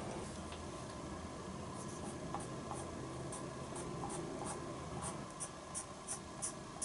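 A white correction pen's tip scratching and dabbing on paper. Near the end it makes a run of light ticks, about three a second.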